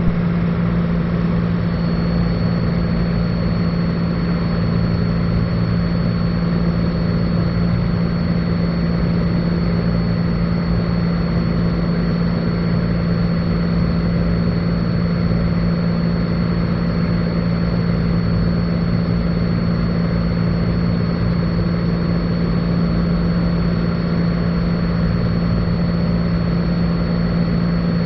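Cessna 182 Skylane's piston engine and propeller droning steadily in cruise flight, heard inside the cabin.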